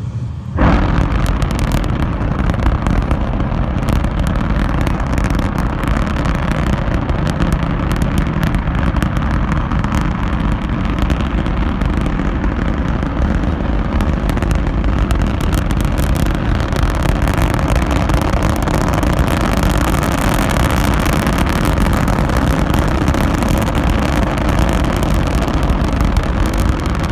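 Static test firing of a large rocket motor on a horizontal test stand, heard from a distance. Its sound arrives suddenly about half a second in, well after the flame is already visible, since sound lags light over that distance. It then holds as a steady, loud, deep rumble with crackle.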